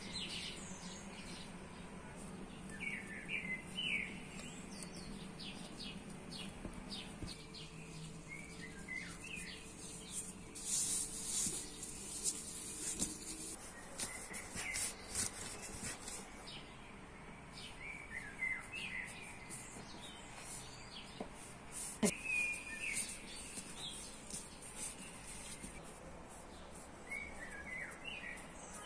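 A bird chirping in short calls that come back every few seconds, over scattered light clicks and knocks.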